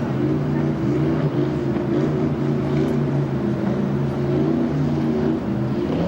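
An engine running steadily at an even speed, a constant drone.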